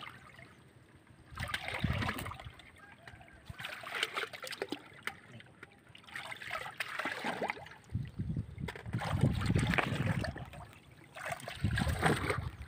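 Water splashing and trickling in about five irregular bursts, each a second or two long.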